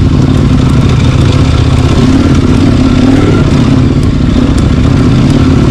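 Four-wheel-drive vehicle's engine running steadily on a dirt track, with faint clicks and rattles over it.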